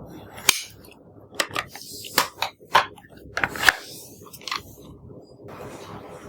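A run of sharp clicks and snaps, about eight of them over four seconds, some in quick pairs.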